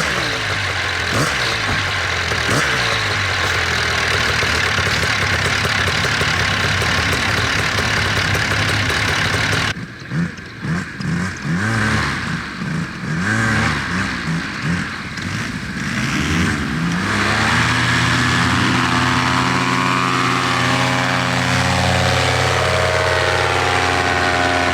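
Polini Thor two-stroke paramotor engine running at a steady high throttle. After an abrupt cut about ten seconds in, a Thor engine is revved up and down in short blips, then held at a steady high run-up near the end.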